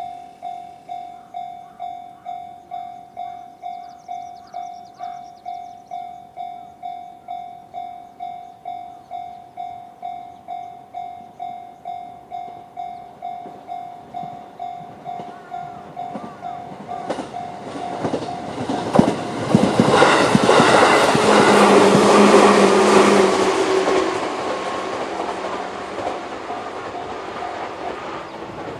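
JR-standard electronic level-crossing alarm ringing in a quick, even pulse of about two to three strikes a second. A JR 211-series electric train then passes over the crossing, its wheels clattering over the rail joints. The train sound builds, peaks about two-thirds of the way through, and fades while the alarm keeps ringing.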